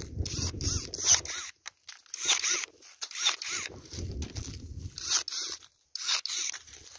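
Battery-powered pruning shears cutting pear-tree shoots: a string of short, sharp snips, several with a brief rise-and-fall motor whine as the blade closes and opens.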